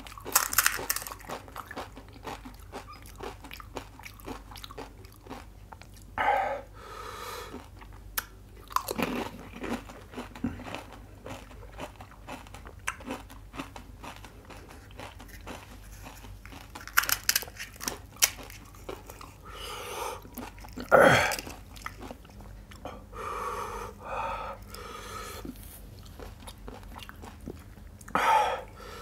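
Crisp pani puri shells crunching between the teeth, with wet chewing in between; several loud bites come at intervals, the loudest about two-thirds of the way through.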